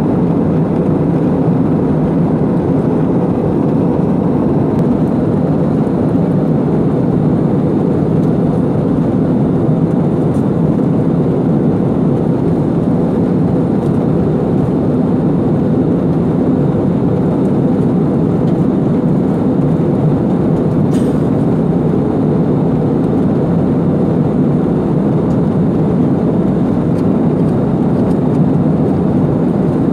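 Steady cabin noise inside a jet airliner in flight: the engines and the air rushing past the fuselage make an even, unbroken low rumble.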